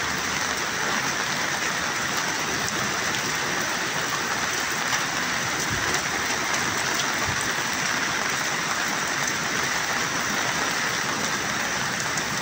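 Heavy rain pouring down over fast-flowing floodwater, a steady, even hiss with no breaks.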